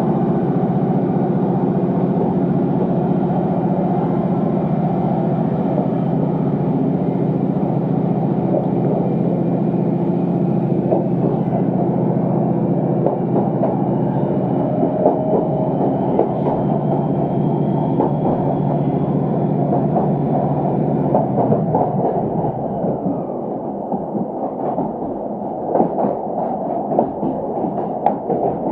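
Passenger train running, heard from inside the carriage: a steady low engine drone with rail noise. About 22 seconds in the engine note falls away, and irregular wheel clicks over the rails come through.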